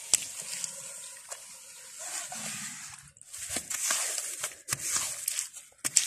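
Wet sand crunching and crackling as a metal clam rake is worked through a tidal sand flat, with scattered sharp clicks.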